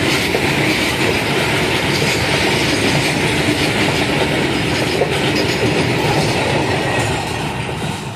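Indian Railways freight train of covered wagons rolling past close by: a steady rumble and clatter of wheels on the rails with a high-pitched wheel squeal over it. It begins to fade near the end as the brake van at the tail goes by.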